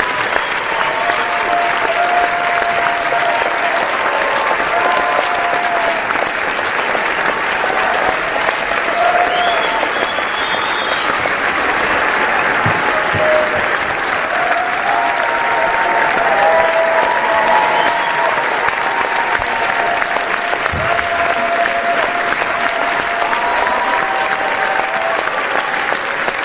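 A large crowd applauding, a dense steady clapping that holds at the same level throughout, with faint voices calling out within it.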